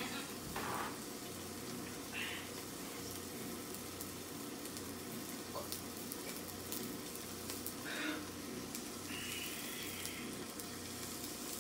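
Steady hiss of room noise with a low hum, and a few faint, brief rustles as a spill on a tile floor is wiped up with a paper towel.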